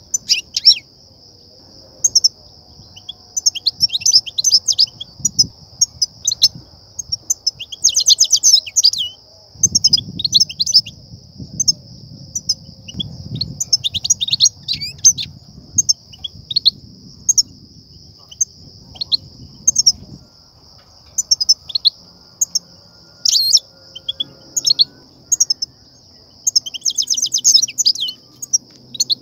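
European goldfinches twittering: quick high chirps throughout, broken by several dense, rattling chatter bursts. This is the excited goldfinch chatter that trappers use to stimulate and lure goldfinches. A steady high-pitched whine runs underneath.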